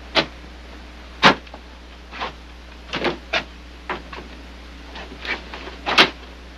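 Boot footsteps and knocks on wooden porch boards, irregular and uneven, the sharpest about a second in and near the end.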